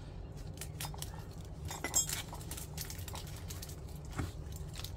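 Handling noise as a potted pandan plant is adjusted in its plastic bucket: scattered light clicks and clinks, the sharpest about two seconds in and another knock about four seconds in, over a steady low hum.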